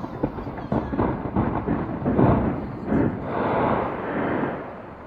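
Fireworks going off: a quick run of sharp pops and bangs, with louder, longer rumbling swells in the middle that die away near the end.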